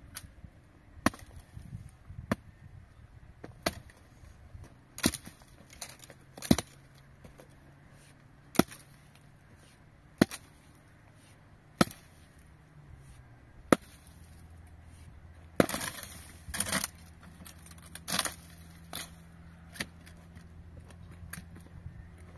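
Wood being chopped: a string of sharp single blows, one every second or two.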